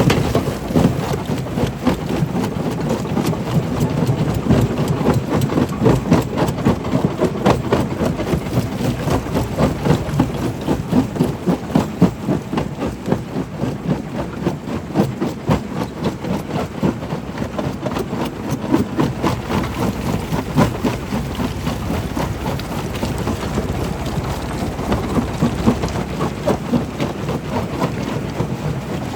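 Stone crusher running: a steady low rumble overlaid with a dense, irregular clatter of knocks and rattles as rock is broken and tumbles through the machine.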